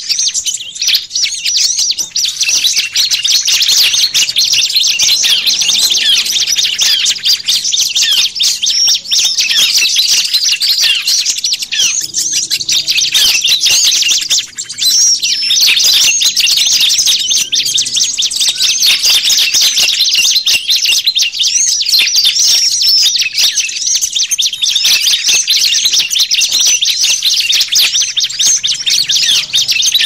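A dense chorus of many small songbirds chirping and twittering without pause, the calls overlapping thickly, as in a mixed bird-lure recording meant to draw small birds in.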